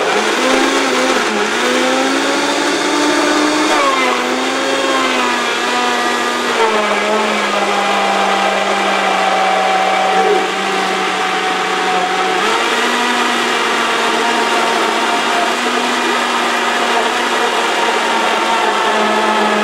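Countertop blender running, blending chopped bananas with frozen blueberries. The motor's pitch wavers in the first few seconds, settles lower from about seven seconds in, and rises again about twelve seconds in.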